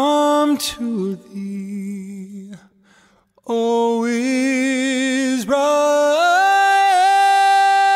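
A solo voice singing unaccompanied, holding a few notes with vibrato and sliding between them. After a short pause about three seconds in, it steps up to a long held note near the end.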